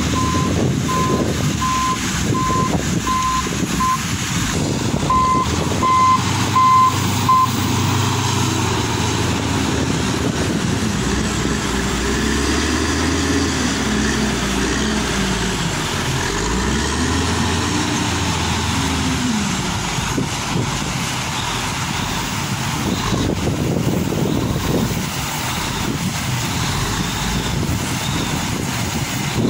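Large diesel wheel loader working: its reversing alarm beeps steadily for the first several seconds, with one short pause, as it backs away from the dump truck. About halfway through, the loader's engine revs up and down twice as it drives back and lifts its bucket, over a constant heavy diesel drone.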